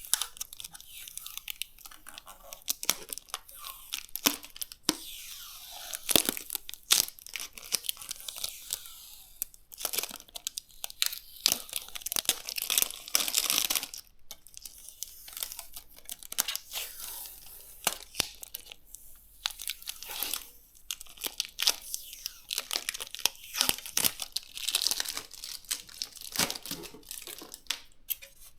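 Plastic packaging crinkling and tearing as parts are unwrapped and handled, with scattered sharp clicks and taps.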